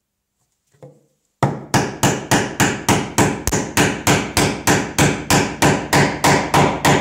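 Mortise chisel driven into white oak by quick, even blows, about three strikes a second, chopping out a mortise. The blows start after a faint knock about a second in.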